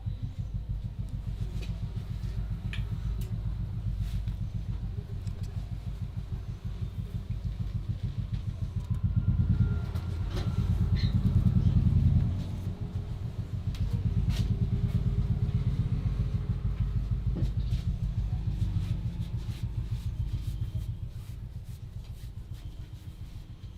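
Head massage heard close up: a fast, continuous low pulsing of rapid strokes on the head, growing louder near the middle, with a few faint clicks.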